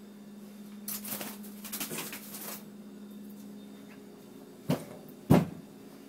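Rustling and clattering about a second in, then two sharp knocks about half a second apart near the end, the second the loudest, over a steady low hum.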